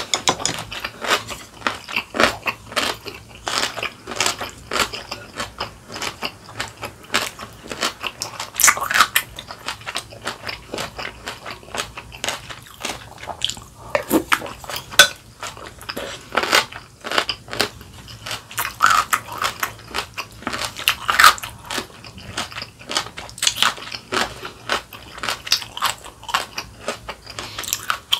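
A person chewing and biting crunchy kimchi and spoonfuls of sundae-guk, giving a steady stream of irregular crunches and mouth clicks.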